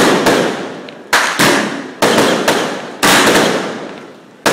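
Aerial fireworks bursting overhead in a steady volley: four loud bangs about a second apart, each fading away in a crackling hiss.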